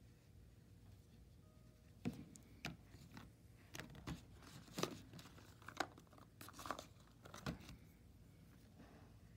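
Stiff drawing paper coated in oil pastel being handled and shifted on the work surface: a string of short, sharp crackles and crinkles starting about two seconds in, ending shortly before the close.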